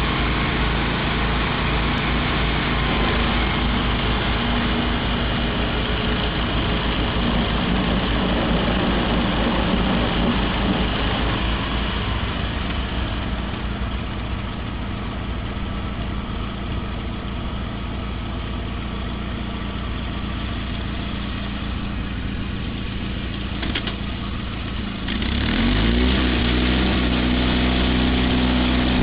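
Wheel Horse 416 garden tractor's single-cylinder engine running steadily while driving its front-mounted snow thrower through snow. The sound is a little fainter through the middle, then near the end it gets louder and climbs in pitch.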